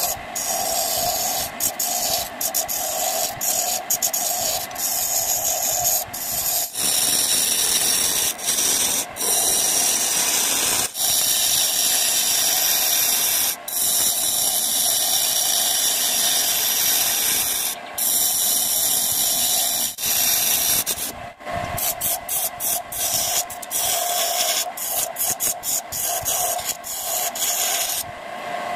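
A hand chisel cutting into a spinning acacia wood blank on a lathe: a continuous scraping hiss as shavings peel off, broken by many brief gaps where the tool lifts from the wood, over the lathe's steady running hum.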